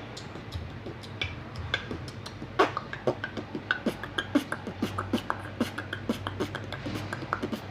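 A quick, irregular run of sharp clicks and taps, several a second, over a low steady hum.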